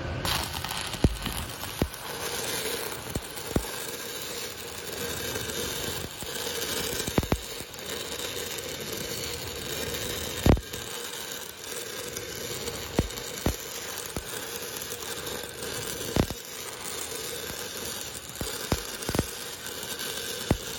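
Stick (shielded metal arc) welding with a 1/8-inch E6010 rod on a pipe branch root pass: the arc strikes right at the start and then crackles and sizzles steadily, with sharp pops scattered through it.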